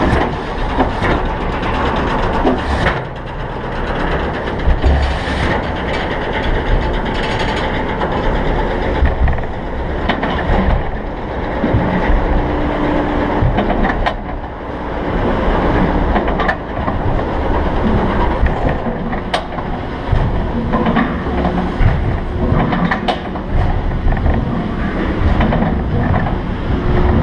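Giovanola steel hypercoaster train rolling slowly over its steel track along the brake run into the station, wheels rumbling with scattered clanks and knocks.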